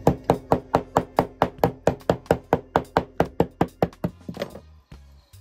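Kitchen knife chopping fresh lemongrass stalks on a wooden cutting board: rapid, evenly spaced chops, about five a second, stopping about four seconds in.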